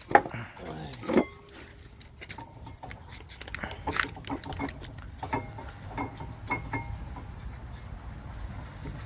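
Scattered sharp metallic clinks and taps of hand tools and brake parts, a few of them ringing briefly, most of them between about four and seven seconds in.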